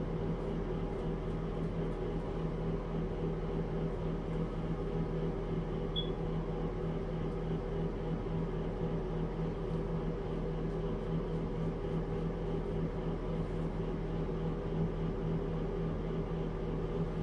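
A steady, unchanging electrical hum, with one tiny high blip about six seconds in.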